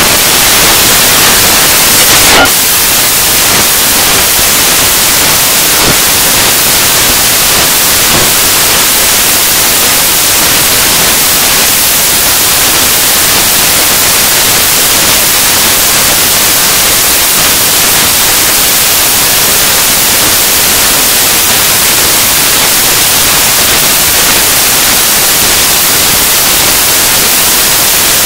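Loud, steady static hiss covering everything, with a brief louder crackle about two seconds in.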